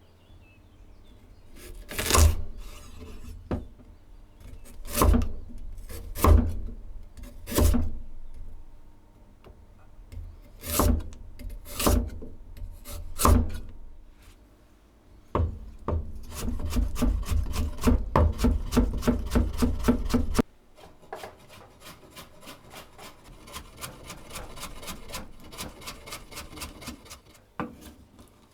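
Kitchen knife cutting vegetables on a wooden cutting board: several separate chops a second or two apart, then fast, even chopping at about four to five strokes a second that stops abruptly, followed by quieter rapid cuts.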